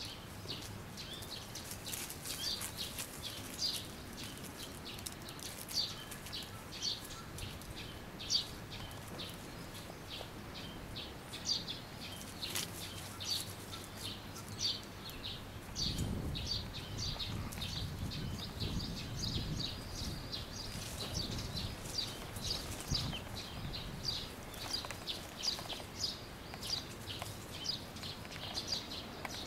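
Small birds chirping: short, high chirps repeating about once or twice a second, with a stretch of low rustling about halfway through.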